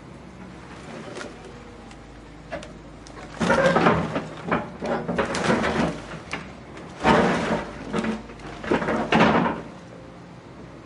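House demolition: a quieter stretch with a few small knocks, then five loud bursts of crashing and crunching debris as the structure is broken apart.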